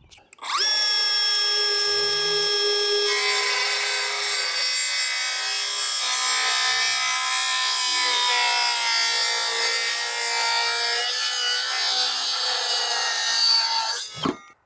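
Milwaukee M12 FUEL Gen 2 5-3/8-inch cordless circular saw spins up with a rising whine and runs free for a moment. It then cuts a 45-degree bevel through a wooden board for about eleven seconds, its pitch dipping a little under load, and shuts off near the end.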